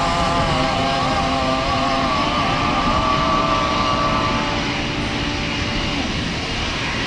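Jet airliner engines passing close by: a loud, steady rush with several whining tones that fade out about five seconds in while the rush carries on.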